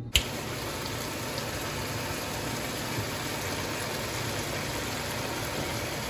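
Sliced chicken sausage sizzling in a nonstick frying pan, a steady, even sizzle. A short click comes just after the start.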